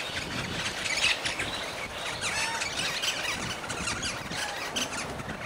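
Several birds chirping and calling at once, many short overlapping calls.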